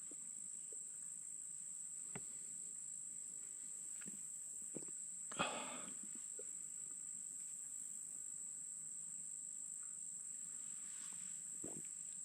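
Insects droning in a steady high-pitched chorus. A few faint clicks and one short, louder noise about five seconds in cut across it.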